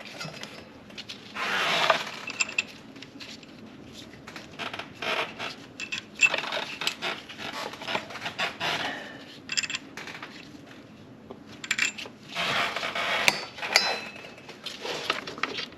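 Hands working hoses and small parts back into place in a car's engine bay: scattered clinks and clicks, with a few short stretches of rubbing and scraping.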